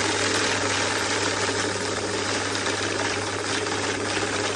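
Pioneer Eco 805 banknote counting machine feeding a stack of notes through at speed: a steady rapid rustle of paper over a low motor hum.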